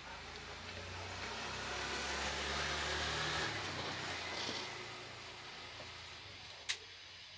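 A motor vehicle passing by: its engine and tyre noise swell and then fade away. A single sharp click comes near the end.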